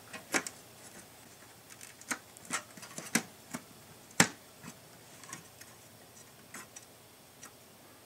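Scattered light clicks and taps of a RAM stick being pushed into a Power Macintosh 7500's memory slot until it snaps in. The loudest click comes about four seconds in.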